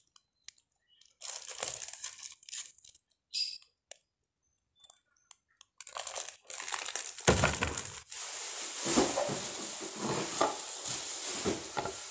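Plastic wrapping being torn and peeled off a plastic cutting board, then crumpled. It crinkles in scattered bursts at first, turning into dense, continuous crinkling about halfway through.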